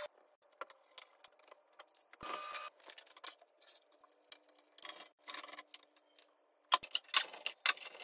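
Scattered light clicks and handling noises, then from about seven seconds in a quick run of metallic clacks and rattles as bar clamps are set and tightened across a glued-up wooden cutting board.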